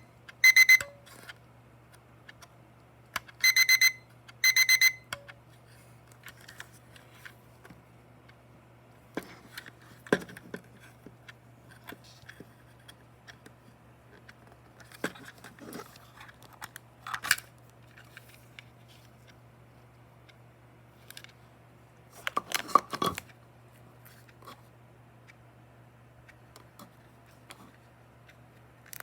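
Cheap Daiso clear plastic alarm clock's electronic alarm beeping in short bursts of rapid, high-pitched pulses, three bursts in the first five seconds, then stopping. Scattered clicks and knocks follow, the loudest a short rattle about 23 seconds in.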